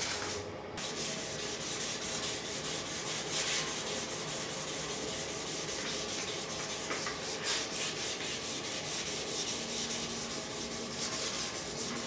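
A strip of 320-grit wet/dry sandpaper rasping in quick back-and-forth strokes around the painted steel tubing of a 1978 Suzuki GS550 motorcycle frame, scuffing the old paint so primer will stick. There is a brief pause in the strokes about half a second in.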